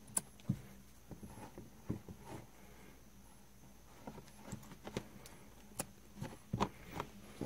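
Faint, irregular small clicks and snips of scissors and fingers working the loose wool warp threads of a kilim under repair, about a dozen over several seconds, over a faint steady hum.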